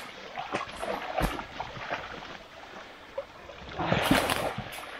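Shallow creek water splashing and sloshing as a feral pig is dragged and handled through it, with scattered knocks and a louder burst of sound about four seconds in.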